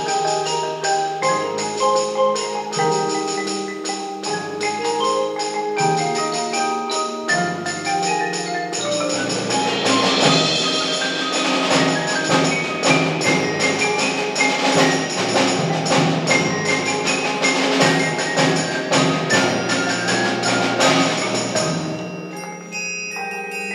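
School percussion ensemble playing: marimba, xylophone and bells with drums, quick repeated struck notes over a moving line of pitched mallet notes. About ten seconds in the texture thickens and gets louder, then near the end it thins out to a few ringing held notes.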